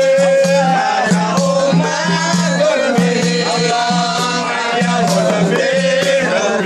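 Group of men singing a chant together to hand-held frame drums beaten in a steady rhythm.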